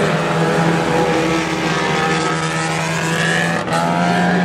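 Several micro banger cars' small engines revving hard together, their overlapping notes rising and falling as they race.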